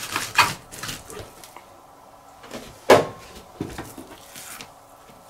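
Kitchen knife scraping along as it cuts the skin from a yellowtail fillet on a plastic cutting board. A sharp knock about three seconds in, the loudest sound, and a softer one just after, as the knife and fish are handled on the board.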